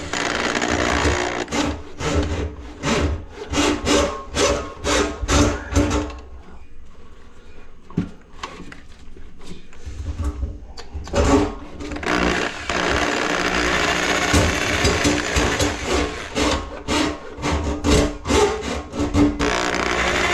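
Rhythmic rasping strokes of a tool working on the drain, about two a second, over a faint steady hum; the strokes drop away for several seconds midway, then resume.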